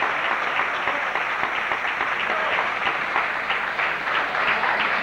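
Audience applauding; toward the end the applause thins to more separate claps.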